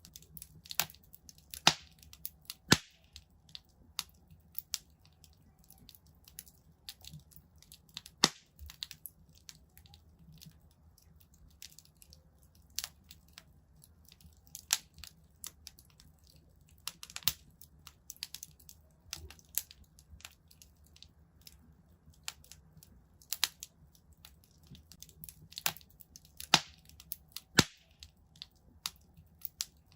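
Wood fire in a fireplace crackling, with irregular sharp pops, a few much louder than the rest, over a faint low rumble.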